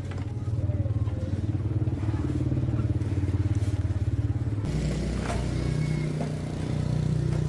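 A small engine running steadily with a fast pulsing beat; about four and a half seconds in, its pitch steps up a little and holds.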